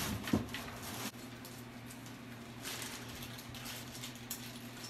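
A few knocks and rustles in the first second as a ceramic wash basin is lifted off its pedestal and set down on cardboard, then quieter rustling and small clicks of handling over a faint steady low hum.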